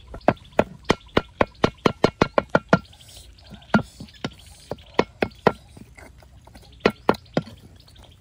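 Heavy cleaver chopping fatty pork on a thick round wooden chopping block: a quick run of sharp chops, about four a second, for nearly three seconds, then a pause and scattered single chops.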